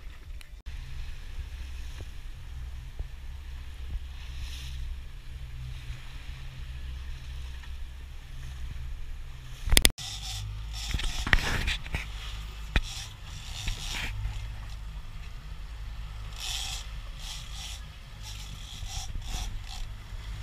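A boat's engine drones steadily. About halfway through, the sound opens up into the engine with rushing wake water and gusts of wind on the microphone.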